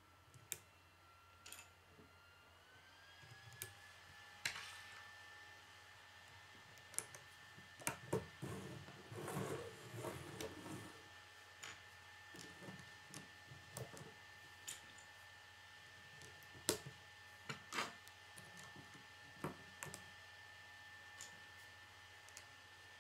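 Plastic K'nex rods and connectors clicking as they are snapped together by hand, in scattered sharp clicks, with a few seconds of rustling and sliding about eight seconds in. A faint steady high tone sounds throughout.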